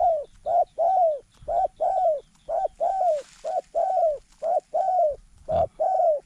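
A zebra dove cooing: a rapid, rhythmic string of more than a dozen coos, short notes alternating with longer arched ones. It breaks off just before the end.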